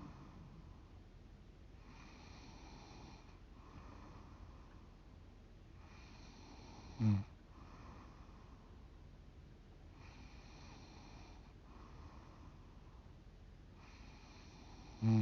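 A sleeping woman breathing slowly and noisily, a hissing breath about every four seconds. A short, sharp snort comes about seven seconds in and another at the very end. The title asks whether this snoring is sleep apnea.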